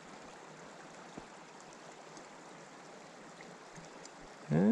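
Steady rush of flowing creek water from open leads in the ice. Just before the end a loud, pitched call rises sharply, then holds.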